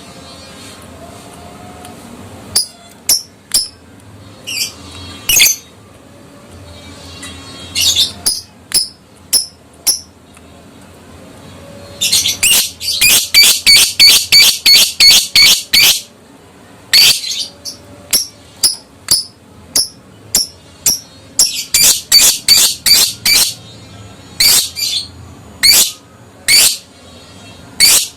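Adult lovebird giving shrill, sharp chirps, single and in short groups, breaking twice into long rapid runs of repeated calls: the 'ngekek' chatter of a fighter lovebird.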